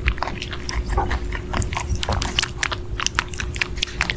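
A rabbit biting and chewing strawberries: quick crunching clicks, several a second.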